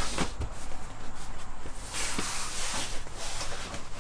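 Upholstered bunk cushion being pushed and slid into place on a camper bunk frame: fabric rubbing, with a few soft knocks.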